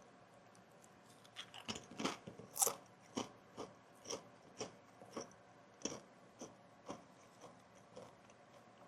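Kettle-cooked potato chips bitten and chewed: a burst of loud crunching bites about a second and a half in, then steady crunchy chewing about two chews a second that grows fainter near the end. A fan hisses steadily underneath.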